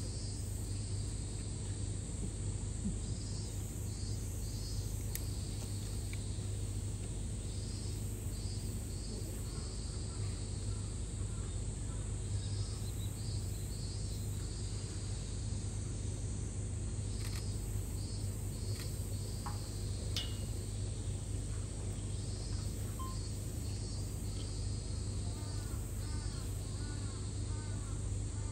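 Outdoor summer ambience: insects calling in short repeated pulse groups, high in pitch, over a steady low hum. A few faint chirps come near the end.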